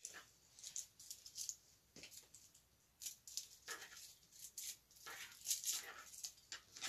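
Faint, irregular rustling and clicking of an onion being peeled and handled with a kitchen knife over a plastic cutting board, the papery skin crackling in short scattered bursts.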